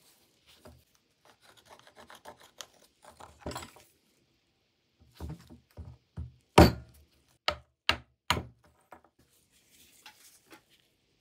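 Hand-tool work at a bench: faint rubbing and handling noises, then a series of sharp knocks starting about five seconds in, the loudest about six and a half seconds in.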